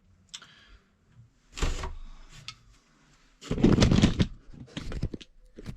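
Hands handling and sorting thermostat wire: short rustles and clicks, with a louder scraping rustle about three and a half seconds in.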